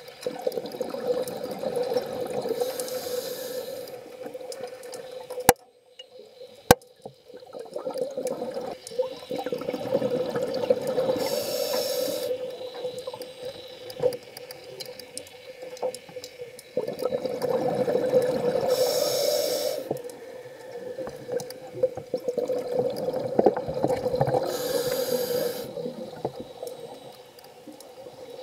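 Scuba diver breathing through a regulator underwater: a hiss with each inhalation and a long bubbling rumble with each exhalation, about four breaths in a row. Two sharp clicks about six seconds in.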